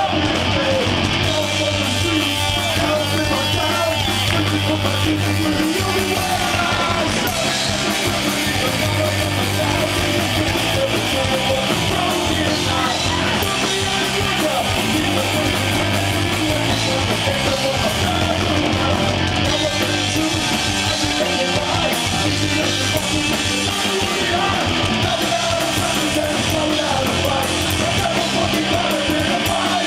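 Punk rock band playing live and loud: distorted electric guitar, bass guitar and drums, with shouted lead vocals over them.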